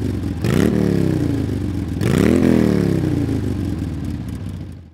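A motor engine revving: it is blipped twice, each time its pitch shooting up quickly and then sinking back, and it cuts off abruptly at the end.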